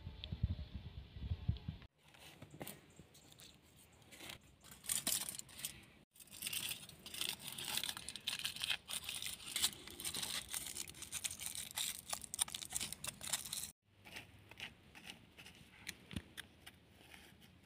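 Close crinkling and rustling of hands handling paper and plant material, with many small sharp ticks and taps. It is loudest in the middle and breaks off abruptly three times.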